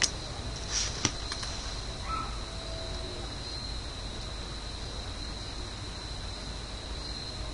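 Room tone: a steady hiss with a thin, high, steady whine, and a few small clicks in the first second or so.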